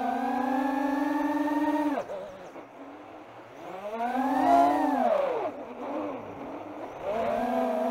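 FPV quadcopter's brushless motors and propellers whining, the pitch following the throttle. A steady, slowly rising whine cuts off sharply about two seconds in as the throttle is chopped for a dive. The whine then swells up and falls away again around the middle, and builds back near the end.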